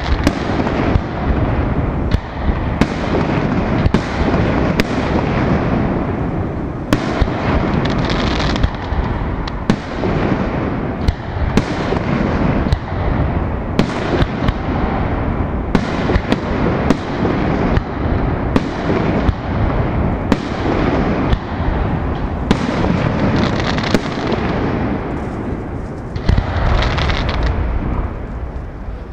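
Aerial firework shells bursting in quick succession: sharp bangs about once a second, each trailing into echoing booms, over a continuous low rumble.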